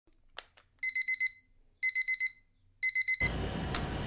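Electronic alarm-clock beeping: a single click, then three bursts of four or five quick high-pitched beeps, about a second apart. Near the end a steady rushing noise cuts in abruptly.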